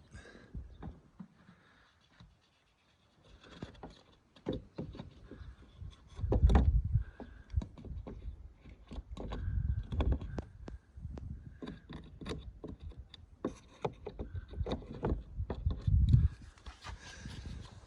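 Door swung back and forth on hinges just treated with silicone spray, with faint hinge squeaks and repeated knocks and thuds; the loudest thuds come about six and a half, ten and sixteen seconds in. The hinges had been creaking badly before the lubrication.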